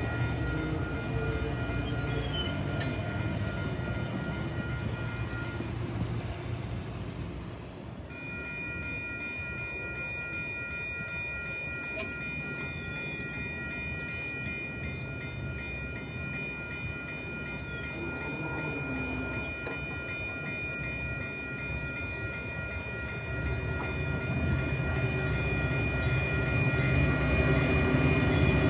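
A train rumbling on the tracks, growing louder near the end as it comes closer, while grade-crossing signal bells ring with a steady, rapid pulse that stops briefly and starts again.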